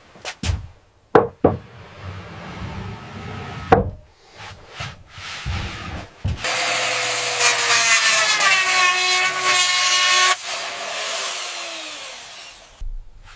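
Building work: a run of sharp knocks and taps on wood, then a power tool running for about six seconds, its pitch falling as it winds down near the end.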